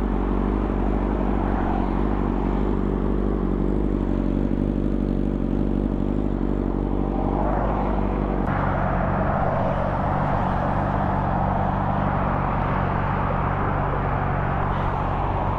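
Steady freeway traffic noise from cars passing close by, over a constant low hum; the noise shifts in character about eight seconds in.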